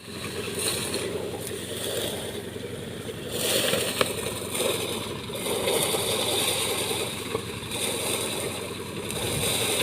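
Motorized rice threshing machine running steadily, its engine and threshing drum making a continuous churning mechanical noise, with one sharp click about four seconds in.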